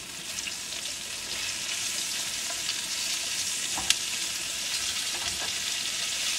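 Chorizo and mushrooms sizzling in oil in a frying pan over a gas burner, growing a little louder over the first couple of seconds. A single sharp click stands out about four seconds in.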